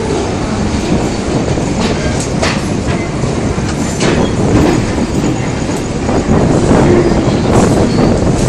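Duronto Express passenger coach rolling slowly on the rails, heard from the train itself: a steady wheel-and-rail rumble with irregular sharp clicks as the wheels pass over rail joints and points.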